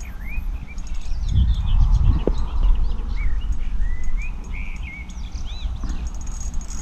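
Small birds singing, with many quick chirps and whistled notes, over a low rumble that is loudest a second or two in.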